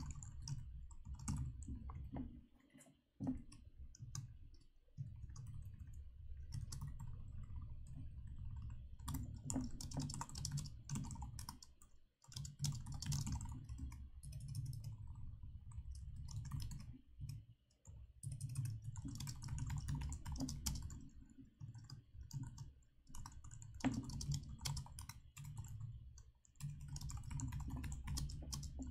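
Typing on a computer keyboard: quick runs of key clicks with short pauses between them, over a steady low hum.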